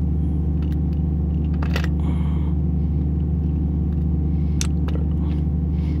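A steady low mechanical hum runs throughout, with a couple of faint light clicks as a bent paper-clip tool works an O-ring into a brass quick-connect air fitting.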